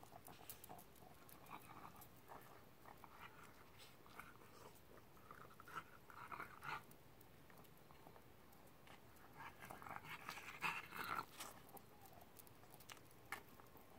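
A small dog on a leash panting faintly as it walks, its breathing louder for a moment about ten seconds in, with light clicks and taps of steps on pavement.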